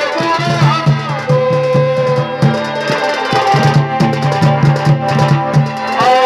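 Live folk music of the kind that accompanies Chhau dance: drums keep a steady rhythm under a wavering melody line.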